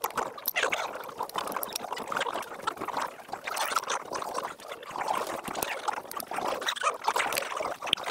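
Liquid being poured through a glass funnel into a glass conical (Erlenmeyer) flask, with irregular small clicks and knocks of glassware.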